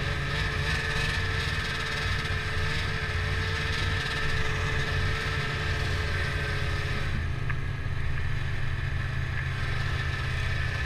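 Snowmobile engine running at a steady cruise, heard from on board, with an even drone and no big changes in speed.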